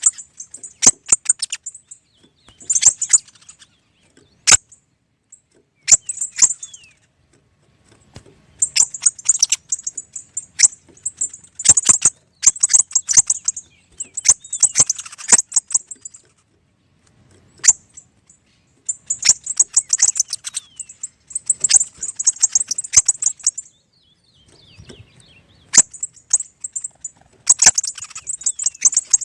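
Birds singing in rapid, high-pitched chattering bursts of about one to two seconds, separated by short pauses, with a few sharp clicks in between.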